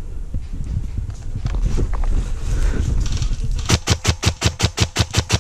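Airsoft gun firing a rapid burst of about a dozen shots, roughly seven a second, starting about three and a half seconds in.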